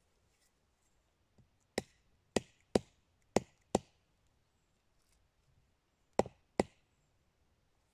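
Wooden baton striking the spine of a knife to split a short log (batoning): five sharp knocks in quick succession, a pause, then two more.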